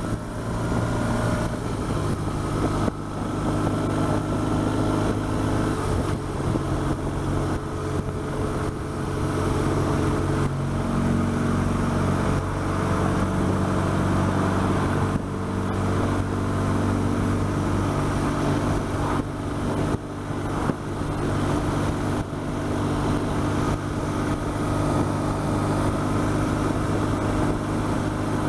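BMW R1200GS flat-twin engine running at a steady cruise, a continuous drone whose pitch shifts slightly now and then, over wind and road noise.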